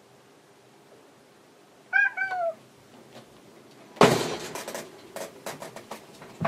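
Domestic cat giving one short meow that falls in pitch, about two seconds in. About four seconds in comes a sudden thump on the wire cage, followed by a run of light rattling knocks.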